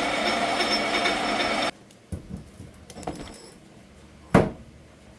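Metal lathe running steadily while a centre drill cuts into a steel hinge pin, cutting off abruptly under two seconds in. Light metallic clunks of handling follow, then one sharp, loud metal knock near the end.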